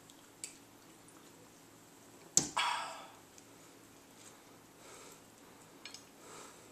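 A soda can put down on a wooden table with one sharp knock about two and a half seconds in, followed by a short rustle. Otherwise quiet room tone with a few small handling ticks.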